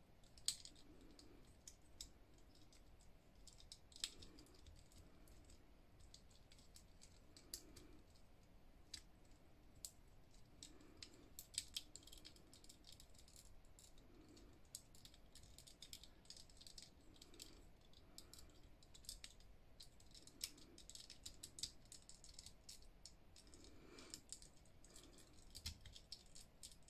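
Faint, irregular small plastic clicks and rattles of a Transformers action figure's jointed parts being twisted and snapped into place as it is converted into its jet mode.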